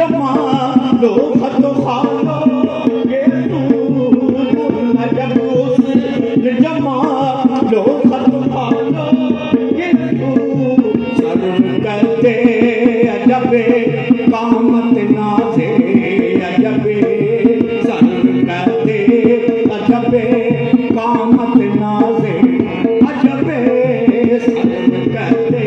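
Qawwali music: tabla playing a fast, even rhythm under steady held harmonium tones, with sung voices over them.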